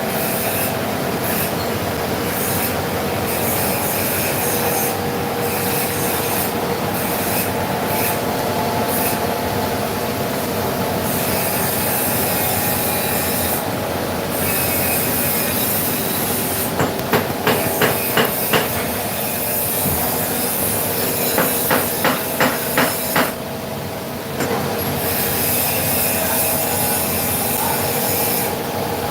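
CNC vertical machining center milling, a steady grinding cutting noise with a held whine. Past the middle come two short runs of quick, evenly spaced taps.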